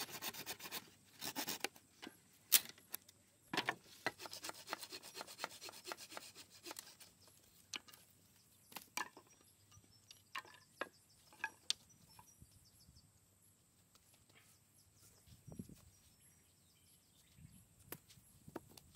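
Hand pruning saw cutting through a wooden pole in bursts of rapid rasping strokes, followed by a few sharp knocks of wooden poles being handled and set down.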